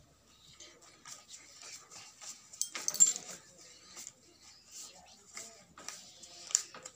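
Two kittens scuffling and playing on a concrete floor: faint scattered scratches and taps, with a louder noise about three seconds in and a sharp one near the end.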